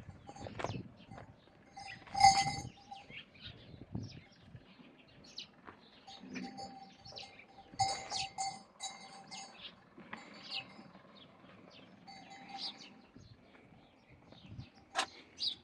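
Metal livestock bells clanking irregularly, loudest about two seconds in and again about eight seconds in, with birds chirping.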